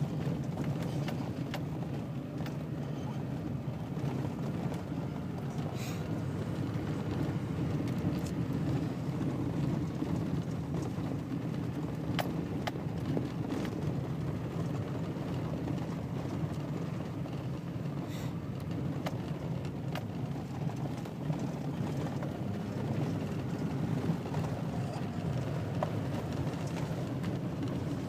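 Steady road and engine noise heard inside the cabin of a pickup truck driving at highway speed, a low, even rumble with a few faint ticks.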